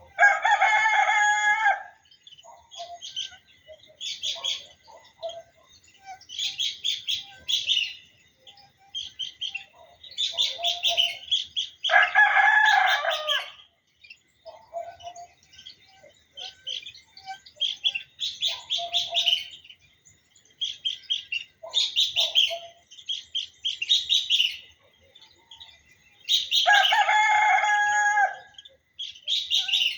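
A rooster crowing three times, about twelve seconds apart, each crow about two seconds long, with smaller birds chirping and singing in between.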